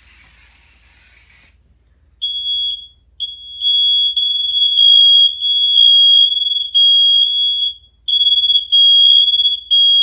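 An aerosol can of smoke-alarm test spray hissing for about a second and a half, then, about two seconds in, residential smoke alarms set off by the smoke start sounding: loud, high-pitched beeping on one pitch, several alarms overlapping out of step so the beeps run together almost without a break.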